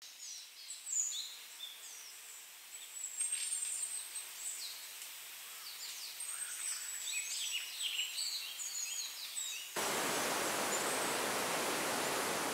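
Many small birds chirping and trilling in a forest. About ten seconds in, this cuts abruptly to the steady rush of a waterfall.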